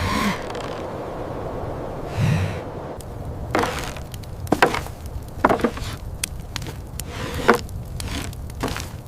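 A breathy exhale or two, then a run of about seven sharp knocks, irregularly spaced about a second apart, over a low steady rumble.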